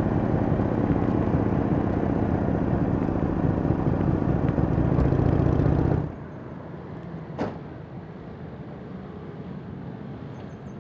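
Motorcycle engine running under way, heard on board with the rumble loud and steady. About six seconds in it drops to a quieter scene of a group of cruiser motorcycles idling and rolling up, with one sharp click about a second and a half later.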